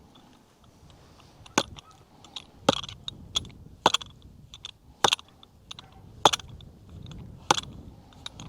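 Fence post being hammered into the ground: six hard, evenly paced blows about 1.2 seconds apart, beginning about one and a half seconds in, with lighter knocks between them.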